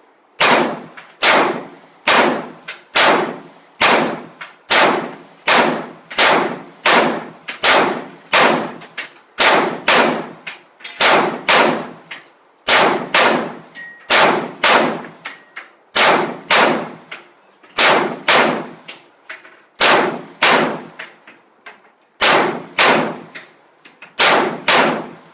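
Springfield XD9 compact 9mm pistol fired in steady succession, some thirty-five shots at roughly one every half second to a second, each with a short ringing tail. There are two brief pauses, one near the middle and one about four-fifths of the way through.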